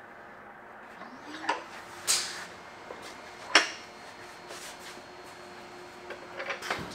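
Sharp metallic clanks and knocks from a bench vise being worked as the just-quenched blade is clamped between wooden blocks: three separate clanks in the first four seconds, the third the loudest, then a quick cluster of small knocks near the end.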